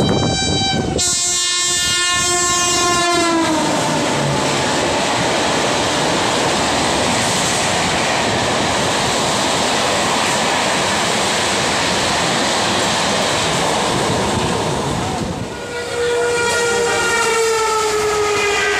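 An electric locomotive's horn sounds and slides down in pitch as the express passes close by. Then comes the steady rushing clatter of its coaches going past. Near the end another train horn sounds, also gliding down in pitch.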